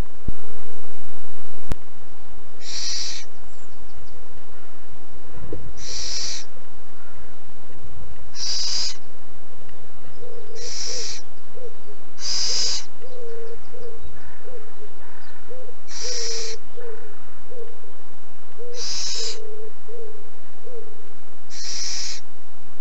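Little owl chick giving its rasping hiss, the begging call of a young little owl, repeated about eight times at intervals of two to four seconds. A run of short low notes sounds in the background through the middle of the stretch.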